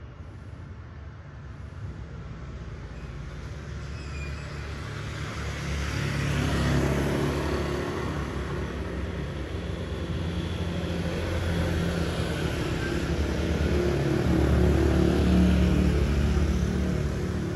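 Street traffic going by, with a steady low engine hum throughout. A motorbike passes, its sound swelling about seven seconds in, and a second vehicle swells past near the end.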